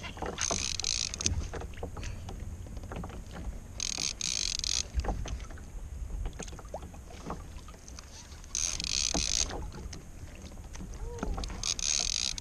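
Large conventional fishing reel whirring in four short bursts, about one every three to four seconds, as line is cranked in during a fish fight, over a steady low wind rumble on the microphone.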